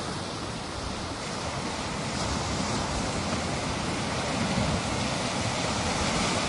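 Ocean surf washing onto a beach, a steady rushing noise that swells slightly partway through.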